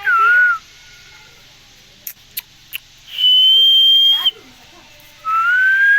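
Indian green parrot whistling three clear, drawn-out whistles. The first wavers, the second is a long steady higher note, and the third rises. A few short sharp clicks fall between them.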